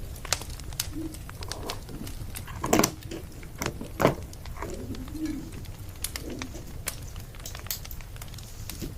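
A pigeon or dove cooing in a few low soft phrases over the steady crackle and tick of a burning wood fire, with two louder pops about three and four seconds in.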